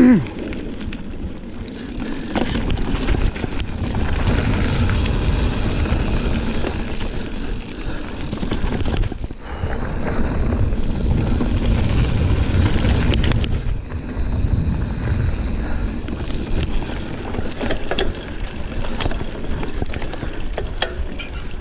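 Giant Fathom 29 mountain bike ridden along a dirt trail: a steady rumble of tyres on the ground, swelling and easing with speed, with scattered sharp clicks and rattles from the bike over bumps.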